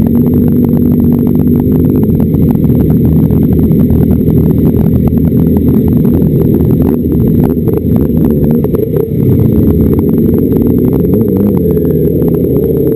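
Motorcycle on the move: the engine runs steadily under heavy wind noise buffeting the bike-mounted camera's microphone.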